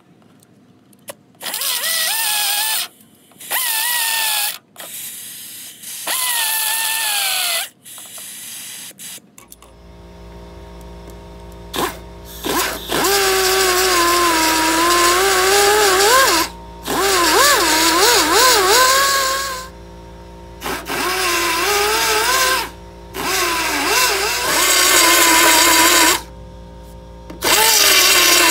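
Electric belt file grinding down MIG butt welds on a sheet-steel patch. It runs in about nine bursts of one to four seconds, its whine dropping and wavering in pitch as the belt is pressed onto the metal.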